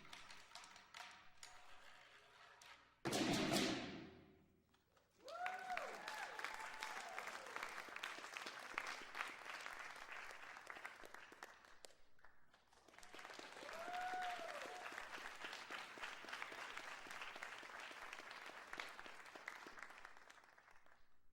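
The last loud stroke of a Chinese percussion ensemble's drums, gongs and cymbals rings out and dies away, then an audience breaks into applause with whooping cheers. The clapping dips briefly about halfway through and picks up again.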